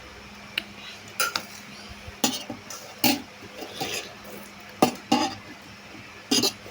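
Cutlery clinking and scraping against dishes during a meal: about eight sharp, irregular clinks.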